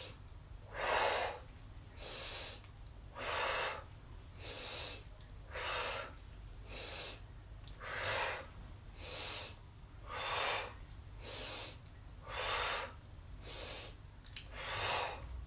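A woman doing rapid rhythmic breathwork, about one breath a second: a quick sniffing inhale through the nose alternating with a forceful blown exhale through pursed lips.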